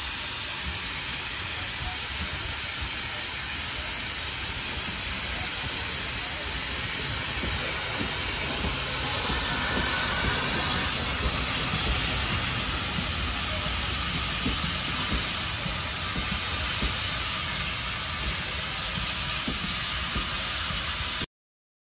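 SE&CR O1-class steam locomotive No. 65 running past with its train, giving a steady, loud hiss of steam over a low rumble. The sound cuts off abruptly near the end.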